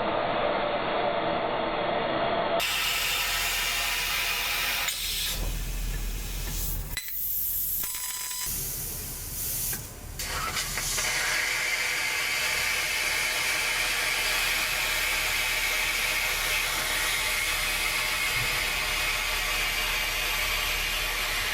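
Industrial laser cutting machine running: a steady hiss with mechanical clatter. The sound changes abruptly a few times, as between separate clips.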